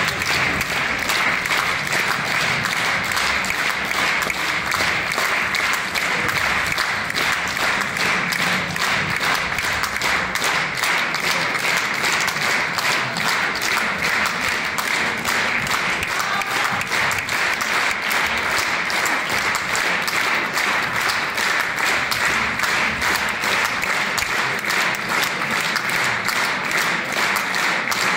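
A theatre audience applauding, a dense, steady clapping that does not let up.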